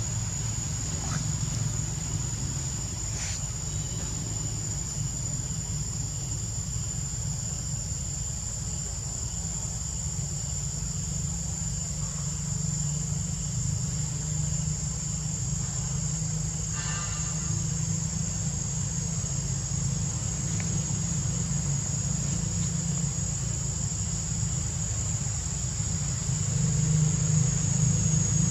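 Steady high-pitched insect drone, one unbroken tone, over a low steady rumble.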